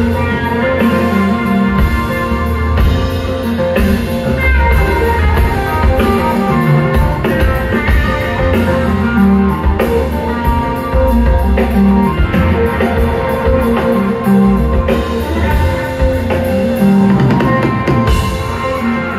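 Rock band playing live with no singing: guitars, bass and a full drum kit.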